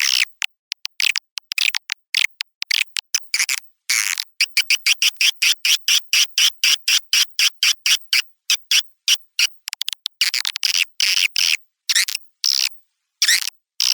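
Swiftlet calls from a recorded lure sound: a rapid train of short chirps, several a second, broken now and then by brief pauses. It is the kind of call played in swiftlet houses to call in and settle the birds.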